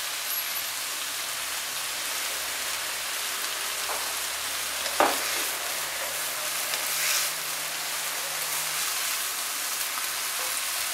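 Shredded cabbage and carrot sizzling in oil in a frying pan, a steady hiss, with a sharp knock about five seconds in.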